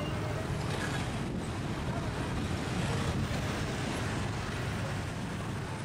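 Steady road traffic: motor scooters and cars running past, with wind rumbling on the microphone.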